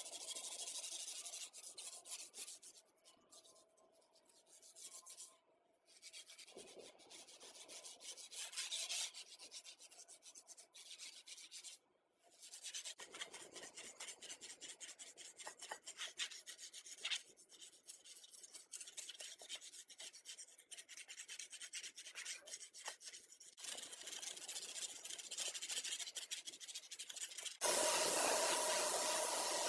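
Hand rubbing and scraping on rusty metal sewing-machine parts as they are cleaned, in several short separate takes. Near the end it turns into a louder, steadier rasp with a faint held whine.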